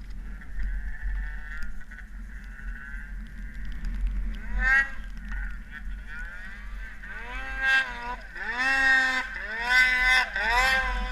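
Snowmobile two-stroke engine revving in repeated rising and falling surges as the sled works across a deep-powder slope, with a single rev about four seconds in and a louder run of about five surges in the second half. The machines are Polaris 800 Pro-RMK sleds.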